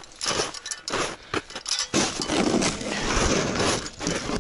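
Handling of the sled's metal hitch bar as it is fitted to the tow machine: a few clicks and knocks, then a steady scraping from about two seconds in.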